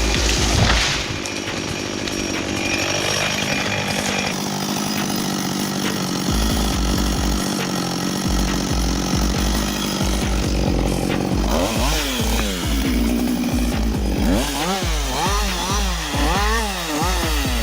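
Chainsaw engine running steadily, then from about two-thirds of the way in revving up and down over and over, about once a second.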